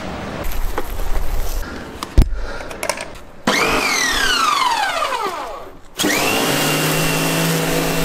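Hose and handling clatter with one sharp knock, then an electric pressure washer's motor switches on about halfway through, its whine falling away for a couple of seconds. It then runs steadily under load while its jet sprays an ATV wheel.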